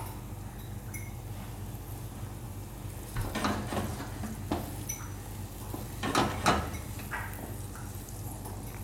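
Wooden spatula stirring and scraping thick masala paste in a frying pan, in two short bouts about three and six seconds in, over a steady low hum.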